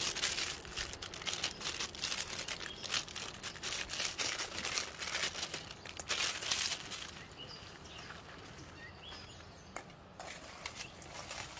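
Plastic food wrapper crinkling and rustling in the hands as it is squeezed and emptied over a bowl, in quick irregular crackles that ease off about two-thirds of the way through and pick up again near the end. Faint bird chirps come through in the quieter stretch.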